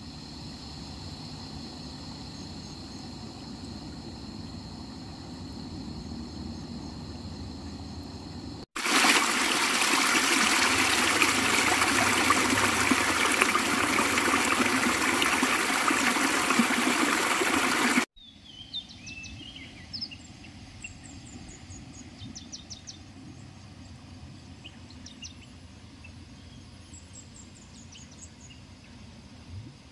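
Water rushing down a boulder-lined stone channel, loud and steady for about nine seconds, cut in after a stretch of quieter outdoor ambience with a faint high steady tone. After the water it cuts to quieter outdoor ambience with scattered short bird chirps.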